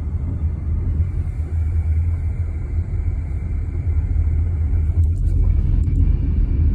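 Car driving on a gravel road, heard from inside the cabin: a steady low rumble of tyres and engine.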